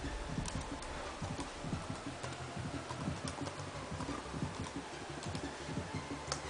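Typing on a laptop keyboard: a run of irregular key clicks as a drive name is entered, with a few sharper clicks among them.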